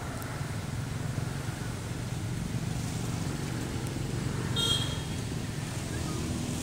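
Steady low rumble of a motor engine running nearby, with a brief high-pitched chirp about four and a half seconds in.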